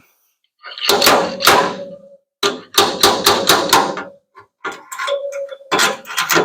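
Slide hammer of a stud-welder dent puller striking its stop in groups of sharp metal knocks, several a second, jerking a low spot out of sheet metal; a short metallic ring follows some of the strikes.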